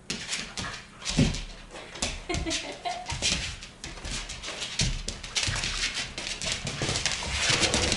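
Two Siberian huskies play-fighting on a laminate floor: claws clicking and scrabbling and bodies scuffling, with a few short dog vocalisations mixed in. The scuffling gets busier and louder in the second half.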